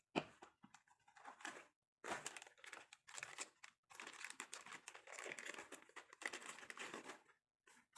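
Plastic packaging crinkling and rustling as it is handled and opened, in irregular spells with short pauses about two and four seconds in.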